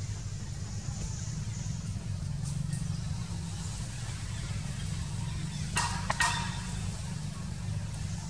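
Steady low motor hum, with a brief cluster of sharp clicks about six seconds in.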